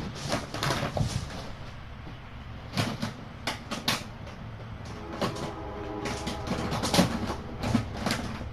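Irregular knocks, clatters and scrapes of household objects being handled and moved about, in several clusters.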